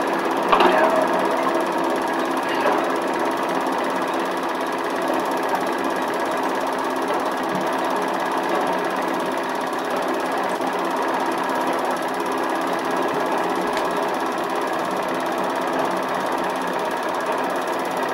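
Steady mechanical whirring and clatter of a small motor-driven mechanism running evenly, with a couple of faint falling whistle-like sounds about half a second and two and a half seconds in.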